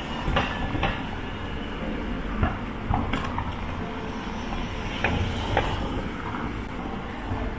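Steady low rumble of a bicycle rolling along a street, with irregular sharp clacks and rattles every second or so.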